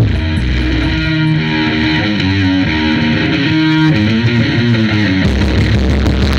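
Loud music played over a large sound system: a plucked, guitar-like melody over bass notes, turning about five seconds in to a dense, heavy bass beat.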